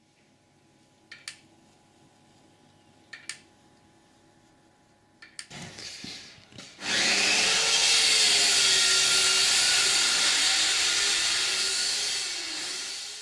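Two pairs of faint clicks about two seconds apart, then a loud, steady mechanical whirring grind with a slowly wavering hum. It starts about seven seconds in and eases a little near the end.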